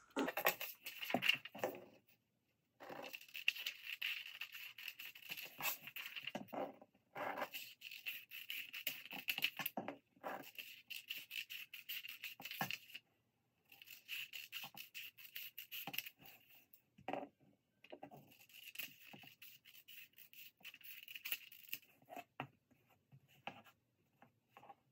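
Scissors cutting through pattern paper: runs of rasping snips, broken by several short pauses between cuts.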